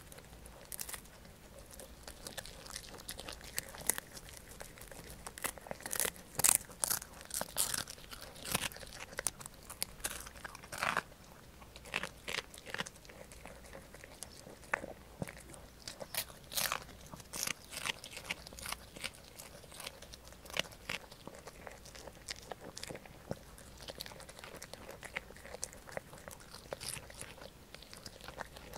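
A poodle crunching and chewing a dried small fish (unsalted dipori treat): irregular crisp crunches in clusters with short pauses between bites.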